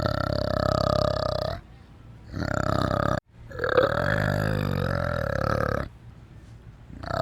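An animal calling: three long, deep, pulsing calls with short pauses between them, the longest lasting about two seconds.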